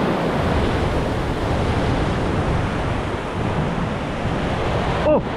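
Sea surf and wind buffeting the microphone: a steady rushing noise.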